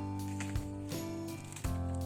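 Background music with held notes that change every second or so over a regular beat.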